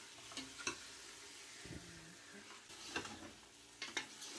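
Faint sizzling of mutton pieces frying with onions in a stainless steel pot, with a few light clicks of the stirring spoon against the pot.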